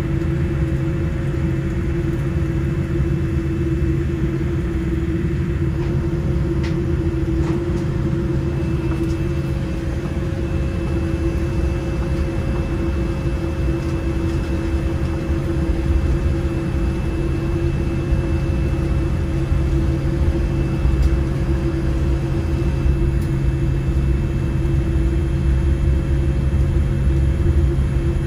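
Steady cabin noise inside a Boeing 787-8 airliner on the ground: a low rumble with a steady hum, and a faint high whine from about nine to twenty-one seconds in.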